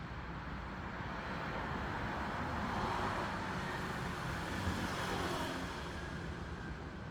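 Road traffic: a passing vehicle's noise swells to a peak partway through and then fades, over a steady traffic rumble.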